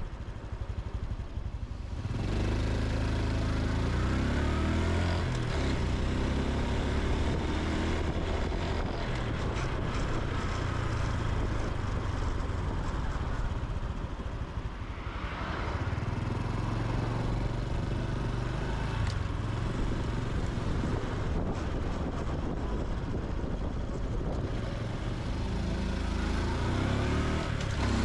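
Honda Super Cub C125's single-cylinder four-stroke engine and exhaust, running quietly for about two seconds, then pulling away with its pitch rising in steps through the gear changes. It rides on steadily, eases off about fourteen seconds in, picks up again, and rises once more near the end.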